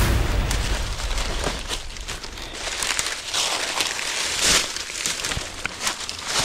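Footsteps pushing through dry leaf litter and brush, with irregular crunching and crackling of leaves and twigs. A low rumble sounds on the microphone in about the first second.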